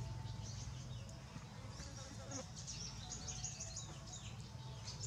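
Small birds chirping, many short high falling chirps in quick succession, thickest in the second half, over a low steady hum.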